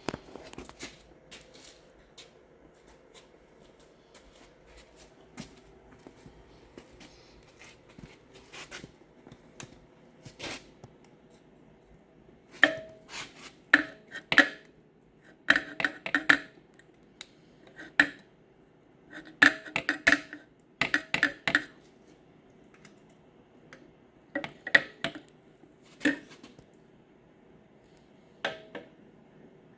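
Scattered sharp metal clinks and clanks of a screwdriver prying at a 4L60E automatic transmission to work its electrical harness loose. The clanks are sparse at first and come thick and fast through the second half.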